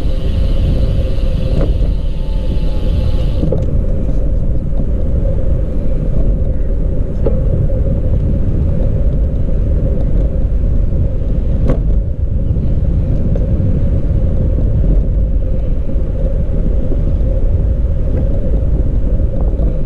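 Steady low rumble of wind and tyre noise on the microphone while riding a bicycle. A higher hiss cuts out about three and a half seconds in.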